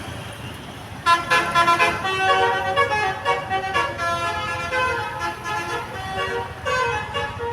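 Basuri telolet musical bus horn playing a melody of stepped notes, several pitches at once. It starts suddenly about a second in and runs on.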